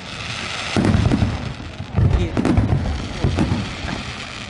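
Fireworks going off: a hissing rush at first, then a run of deep booms with crackling pops between them.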